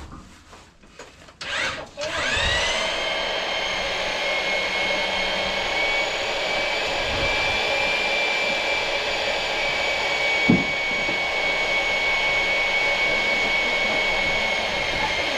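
An electric motor spins up quickly about two seconds in and then runs steadily with a high whine. A single short thump comes through about two-thirds of the way in.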